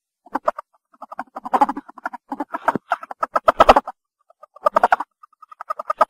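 Ferret calling in bursts of rapid, stuttering clucks, beginning shortly after the start, with a brief pause about four seconds in.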